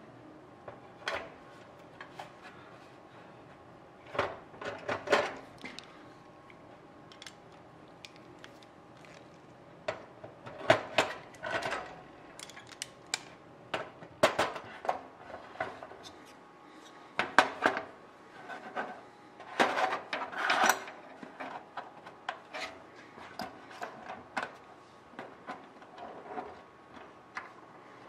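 Cleco sheet-metal fasteners being handled and set into drilled holes in aluminium with cleco pliers: irregular metallic clicks and clinks in short clusters, with pauses between them.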